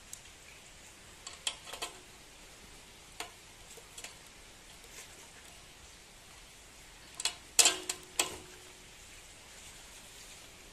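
Sharp clicks and taps of a control cable and gloved hands knocking against the mini tiller's metal handlebar frame during assembly, the loudest cluster about seven and a half seconds in, one knock leaving a brief metallic ring.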